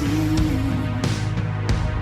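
Background music: a song with a held, wavering sung or played note over a steady bass and a regular beat.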